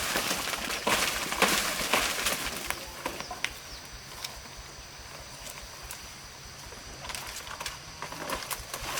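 Rustling, crackling handling noises in bursts for the first three seconds, then a quieter stretch of faint steady background with a few light ticks.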